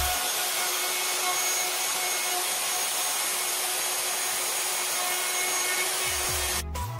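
Skil plunge router running with a mortising bit, routing a hinge mortise in wood: a steady motor whine over an even hiss. It cuts off suddenly near the end as music with a heavy bass comes back in.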